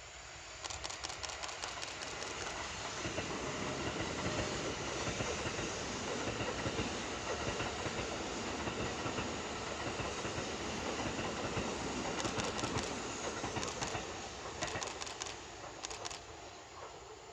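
Kintetsu Urban Liner limited express train passing close by, a steady rumble for about fifteen seconds. Sharp clicks of wheels over rail joints come just after the start and again in a run near the end, then the sound dies away.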